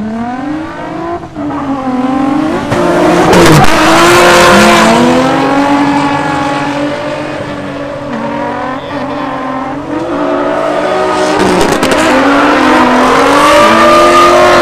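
Two drift cars running in tandem, their engines revving hard with the pitch rising and falling as they slide, over loud tire squeal.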